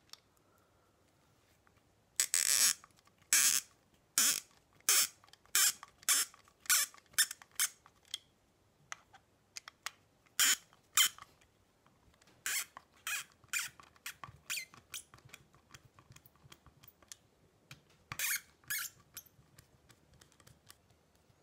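A precision screwdriver turning out a tight, tiny screw from the burr housing of a Comandante hand coffee grinder, squeaking sharply with each twist. The squeaks come one or two a second in runs, with short pauses between them.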